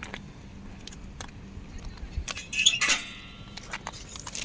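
Clinking and rattling from a bicycle being wheeled along by hand with shopping on it. The clatter is loudest about two and a half to three seconds in and is followed by a short ringing tone that dies away.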